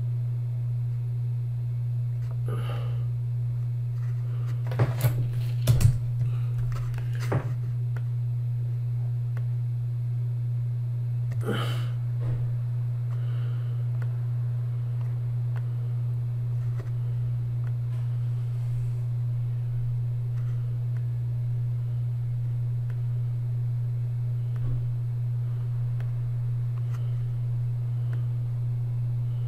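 Steady low electrical hum, with a few sharp clicks and knocks about five to seven seconds in and one more near twelve seconds.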